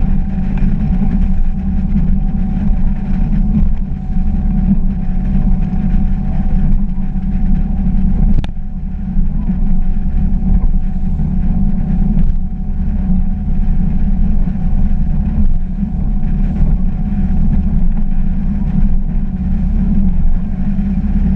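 A bowrider running across choppy water: a steady loud drone of engine, wind and water, with a faint steady whine. A single sharp click about eight and a half seconds in.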